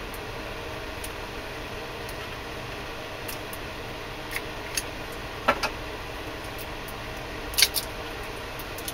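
A few light clicks and taps of hand-handled steel knife blanks as the two are worked apart, the sharpest pair about three-quarters of the way through, over a steady low background hum.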